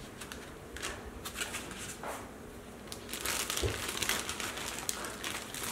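Thin clear plastic bag crinkling and rustling as it is pulled off a figure. The crackle is heaviest in the second half, with a single dull bump midway.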